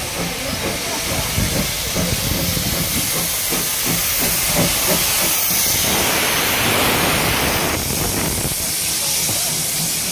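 Steam tank locomotive passing slowly alongside, hissing steam, loudest as the engine draws level about six seconds in.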